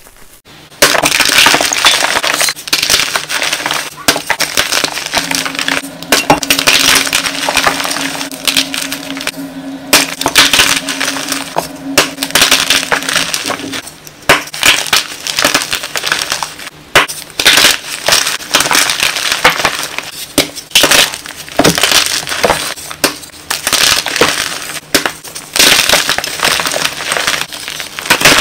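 Hands crushing and crumbling soft blocks of gym chalk: dense crunching and crackling in quick repeated bursts, starting about a second in. A faint low steady hum runs under the crunching for several seconds in the first half.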